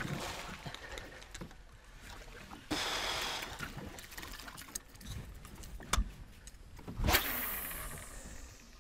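Water splashing and lapping around a small boat's bow while a lure is worked across the surface on a spinning rod. There are scattered clicks, a louder rushing stretch about three seconds in, and sharp splashes about six and seven seconds in, the second the loudest.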